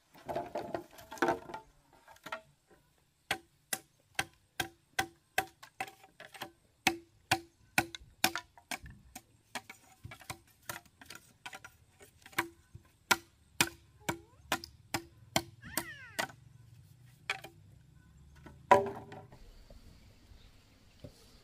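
Repeated tool strikes on wood: sharp knocks about two a second, each with a short ringing tone, then one louder strike near the end.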